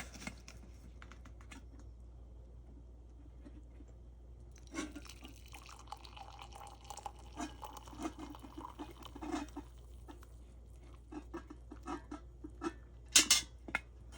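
Stovetop coffee percolator perking: irregular soft gurgles and drips of coffee bubbling up. A few sharper clicks and knocks near the end.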